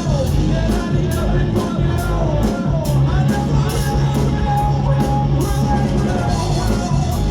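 Live rock band playing a song at full volume: guitar and a sustained low bass line under drum hits at a steady beat of about two a second.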